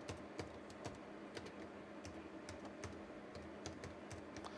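Typing on a computer keyboard: a dozen or so light, irregularly spaced keystrokes over a faint steady hum.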